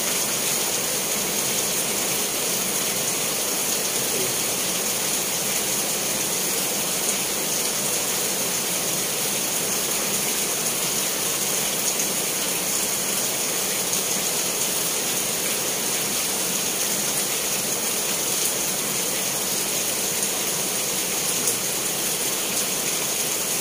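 Heavy rain falling, a steady even hiss that holds unchanged throughout.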